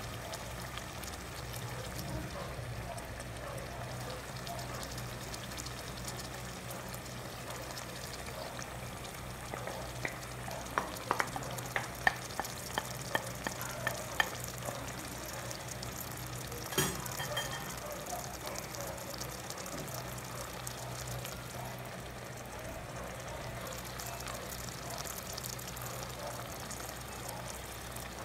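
Pork pieces sizzling gently in oil in a pot, a steady frying hiss with a low hum under it. Around the middle comes a run of about a dozen sharp clicks and taps, then one louder knock a few seconds later, as the tomato sauce goes into the pot.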